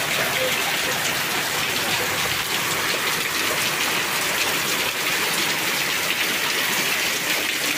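Heavy rain pouring steadily onto tiled roofs and a muddy yard: a dense, even hiss that holds at one level throughout.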